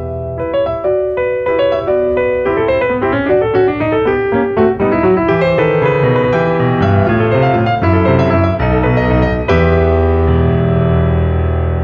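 Steinway concert grand piano played solo: a classical piece in quick, dense runs of notes, then a loud full chord struck about nine and a half seconds in and left ringing.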